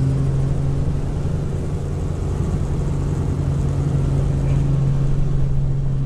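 Helicopter engine and rotor noise heard inside the cabin: a loud, steady drone with a strong low hum that holds one pitch.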